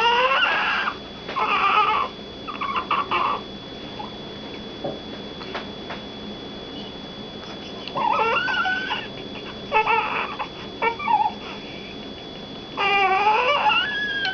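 Baby crying in short bursts of high wails, with a pause of a few seconds midway before the crying starts again.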